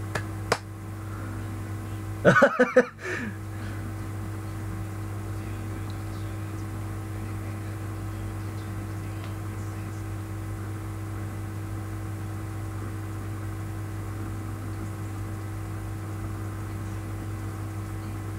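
Steady low electrical mains hum with faint hiss. A single click about half a second in, and a brief burst of a man's voice at around two and a half seconds.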